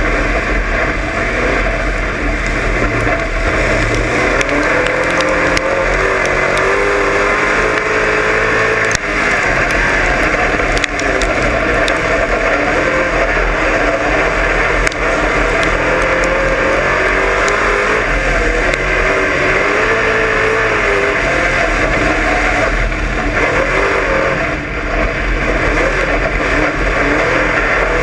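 Dirt-track race car engine heard from inside the cockpit at racing speed, its pitch rising and falling over and over as the throttle is opened and lifted.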